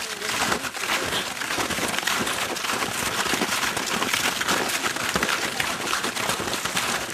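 Snowshoes and trekking poles crunching in snow as a group of hikers walks past, many irregular overlapping steps.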